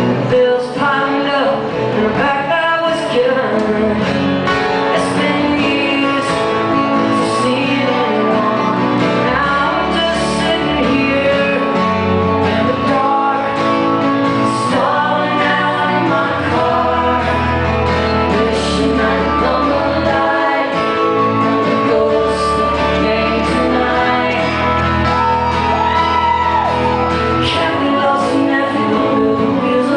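Live folk-rock song: a woman singing into a microphone over a strummed acoustic guitar, heard through a concert hall's sound system.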